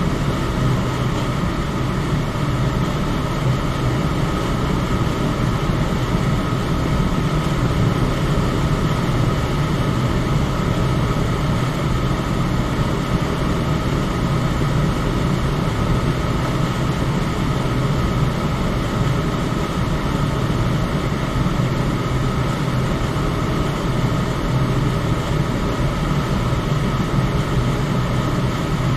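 Electric fan running steadily: an even rush of air with a low hum and a faint steady whine.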